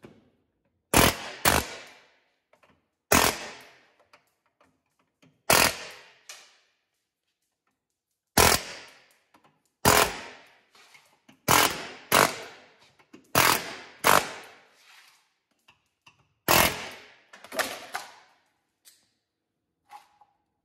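Pneumatic air chisel firing in about a dozen short, loud bursts against a metal skid plate, each one shearing off a factory rivet so the riveted belly skid plate can be removed; each burst trails off quickly before the next.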